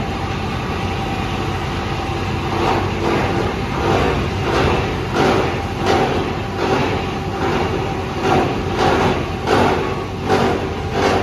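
Scrap copper wire granulator running with a steady mechanical hum, its rotor chopping insulated cable fed into the hopper. From about two and a half seconds in, irregular crunching bursts come roughly one to two a second as the wire is cut.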